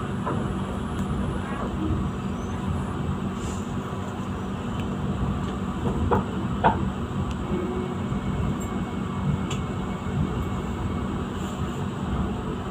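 Passenger train in motion, heard from inside the carriage: a steady low rumble with a faint hum, and a couple of brief sharper knocks or squeaks about six seconds in.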